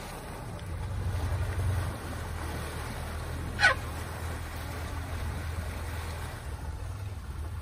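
Elephants in shallow water: a steady low rumble with light splashing, and one short, high squeak falling sharply in pitch about three and a half seconds in, the loudest sound.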